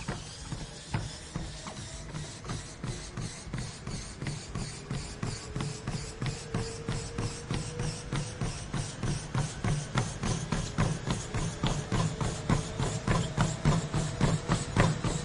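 Running footfalls pounding a gym treadmill's belt at sprint pace, a quick even beat of thuds over the treadmill's low motor hum and a faint whine, growing louder toward the end.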